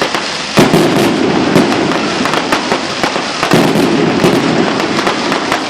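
Fireworks going off in loud, dense crackling with rapid sharp pops. Two heavier bangs stand out, about half a second in and again about three and a half seconds in.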